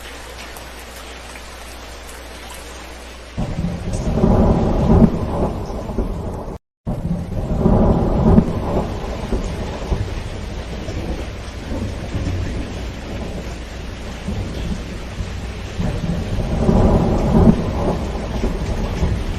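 Steady rain drumming on a corrugated zinc roof. Thunder rolls in suddenly about three seconds in and rumbles again around eight seconds and near the end. A split-second dropout cuts the sound out just before the second roll.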